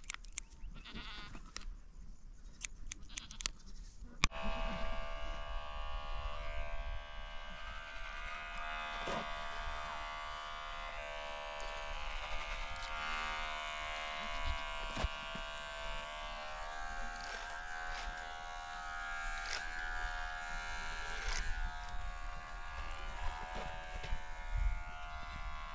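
Scissors snipping hair for the first few seconds, then electric hair clippers switch on suddenly about four seconds in and buzz steadily, the pitch wavering slightly as they cut.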